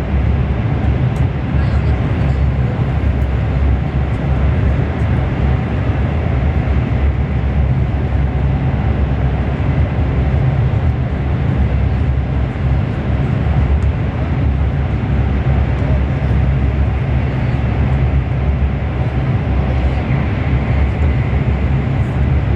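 Steady low rumble and rushing noise of a CRH1A high-speed train running at speed, heard inside the passenger carriage.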